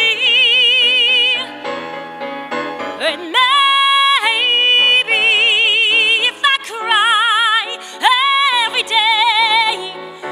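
A woman singing a ballad with a wide vibrato on long held notes, sliding up into notes about three and eight seconds in, accompanied by a grand piano.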